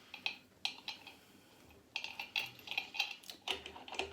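Light, irregular clicks and ticks of parts being handled and a large centre screw being turned by hand as the rotor of an LG direct-drive washing machine motor is refitted. The clicks come a few at a time at first and more thickly in the second half.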